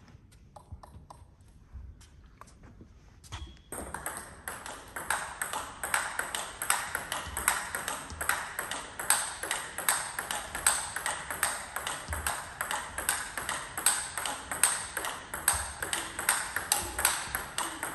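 Celluloid-style table tennis ball clicking off rackets and the table: a few scattered bounces at first, then from about four seconds in a fast, steady practice rally of hits and bounces, several a second, over a steady hiss.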